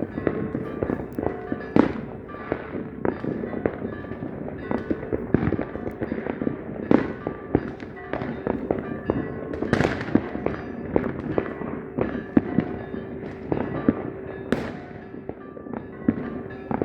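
Fireworks going off in a dense, irregular barrage of bangs and crackles, several louder booms standing out, over a steady tone in the background.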